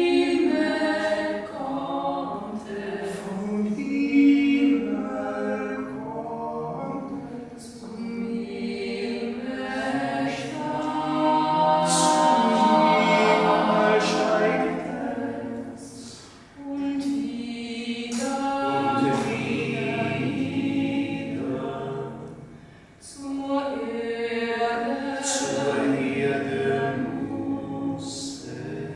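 A small group of men's and women's voices singing together in long held phrases, with two short breaks in the middle.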